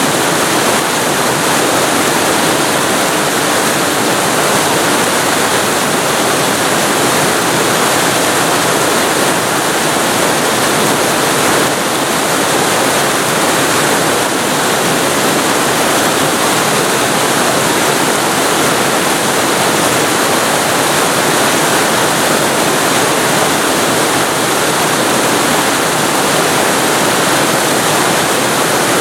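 Waterfall recorded very close to the falling water: a loud, steady rush of water with no other sounds.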